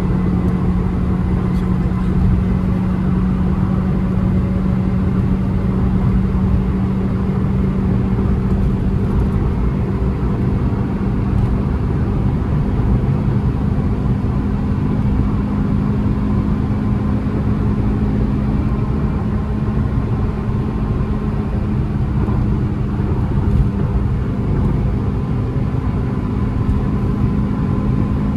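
Honda City's 1.5-litre naturally aspirated four-cylinder petrol engine, heard from inside the cabin at highway speed, with tyre and road rumble. A steady drone whose pitch creeps slowly up as the car keeps accelerating.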